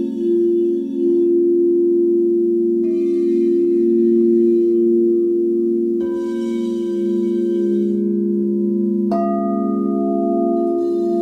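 Frosted crystal singing bowls ringing with sustained low tones that waver and beat. New higher tones join about a third of the way in and again about halfway. A sharper strike comes about three-quarters through.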